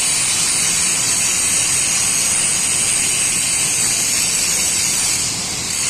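Steady loud hissing noise with a low hum underneath, unbroken and even.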